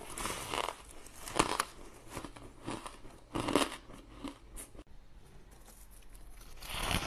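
Chunks of frosty ice being bitten and chewed close to the microphone: crisp crunches about once a second, fading to quiet about five seconds in.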